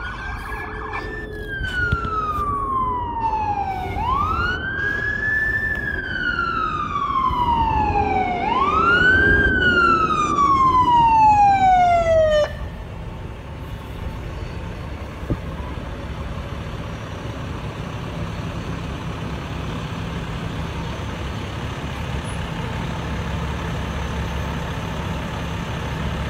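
Fire engine siren on a wail: three cycles, each a quick rise in pitch followed by a long slow fall, growing louder and then cutting off suddenly about twelve seconds in. After that the truck's engine keeps running steadily.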